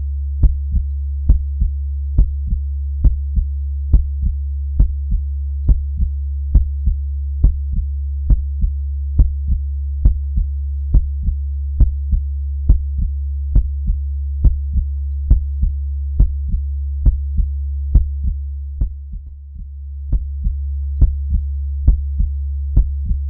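Heartbeat, slow and even: paired lub-dub beats about seventy times a minute over a steady low hum. The hum briefly fades and comes back about nineteen seconds in.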